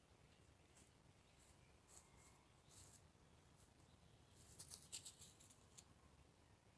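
Near silence broken by faint, crisp ticks and rustles, with a quick cluster of them about four and a half seconds in.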